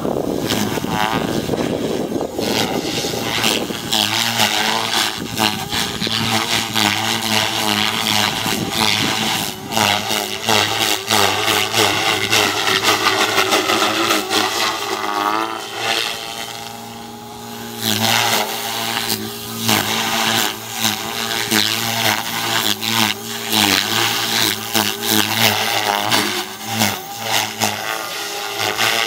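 Radio-controlled model helicopter flying aerobatics, its rotor and drivetrain buzz rising and falling in pitch as it manoeuvres, with a brief quieter spell a little past halfway.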